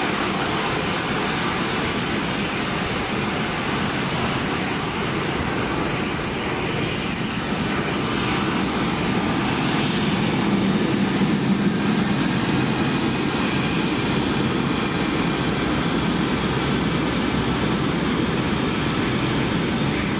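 Jet engines of a C-5M Super Galaxy transport running: a steady loud roar with a thin high whine on top, swelling a little about halfway through.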